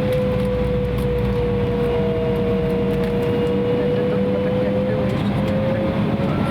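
Embraer 170's GE CF34-8E turbofan engines running at low power, heard inside the cabin: a steady rumble and hiss with a whine that sags slightly in pitch and then rises again.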